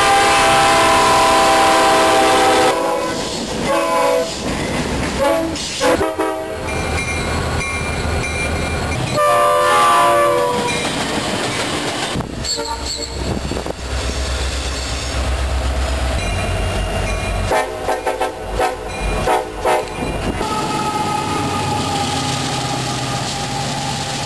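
Diesel freight and commuter locomotives passing and sounding their air horns: a long chord that stops about three seconds in, short blasts a few seconds later, another about ten seconds in, and a steady horn near the end. Between the blasts, engine rumble and wheels clacking over rail joints, with the sound changing abruptly at several cuts.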